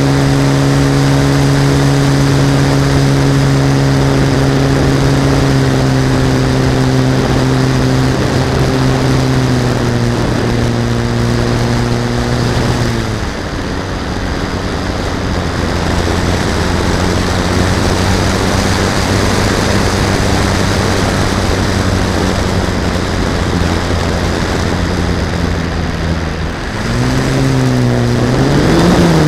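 RC model airplane's motor and propeller running, heard from a camera on board, with air rushing past. The pitch sinks a little, drops to a lower steady pitch about 13 seconds in, then wavers up and down near the end as the plane comes in low over the ground to land.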